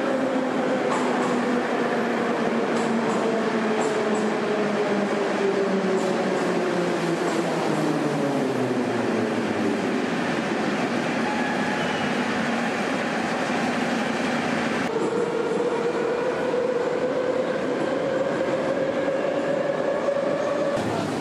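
Metro train running with rumble and a motor whine: the whine falls in pitch over the first several seconds as the train slows. Then, after an abrupt change, a whine rises steadily as a train picks up speed.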